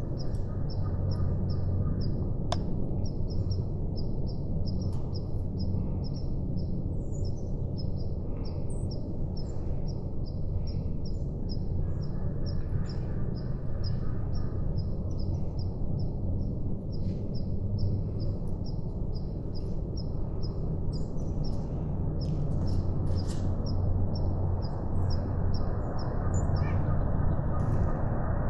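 Outdoor woodland ambience: a steady low rumble under a high-pitched chirp repeating evenly about four times a second, with a few other short bird calls near the end.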